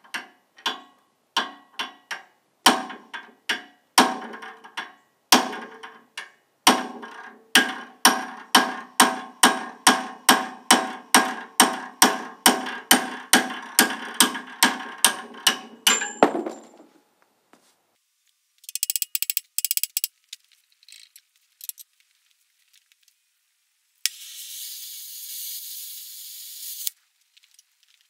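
Hand hammer striking the steel frame of an old three-bottom plow: a long run of sharp, ringing metal-on-metal blows, about two a second and then about three a second, stopping about sixteen seconds in. Later come a brief high rattle and a few seconds of hiss.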